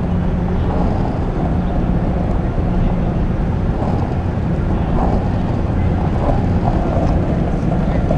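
Steady low hum and rumble with wind noise on the microphone, from a camera moving along a paved path.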